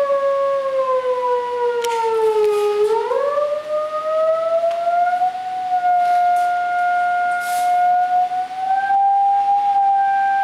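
A single steady electronic tone from the Tone Gen Pro iPhone app, played through a speaker into a Rubens tube. Its pitch glides down, swings back up a little past where it began about three seconds in, holds steady, and steps up slightly near the end. The tone sets up a standing wave in the gas-filled tube, so the row of flames rises in evenly spaced peaks.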